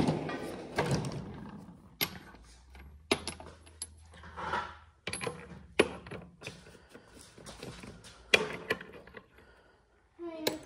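Chrome steel sockets clinking and clattering as a hand picks through a tool chest drawer, with several sharp metallic clicks spaced out over the seconds.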